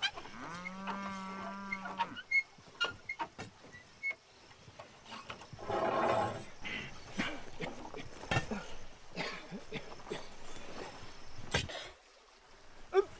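Cattle lowing once near the start, one steady call about a second and a half long. Then a pickaxe and shovel strike and scrape into earth and stone in scattered knocks, with a longer scrape about six seconds in.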